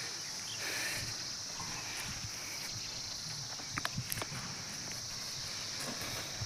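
A steady, high-pitched chorus of insects, such as crickets, trilling without pause. A few short, sharp clicks come together about four seconds in.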